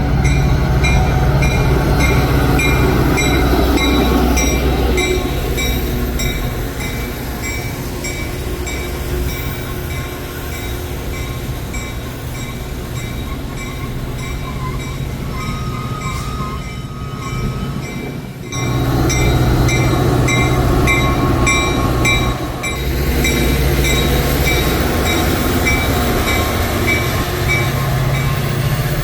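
Metra commuter train arriving: a diesel locomotive's engine runs with a steady low drone while a bell rings in regular strokes. The sound dips sharply for a moment about two-thirds through, then comes back louder.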